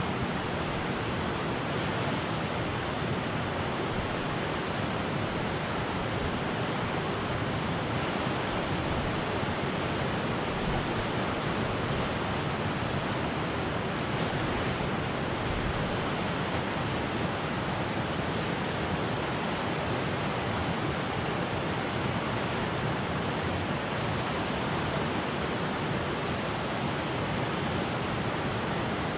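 Steady rushing of flowing stream water, an even, unbroken hiss.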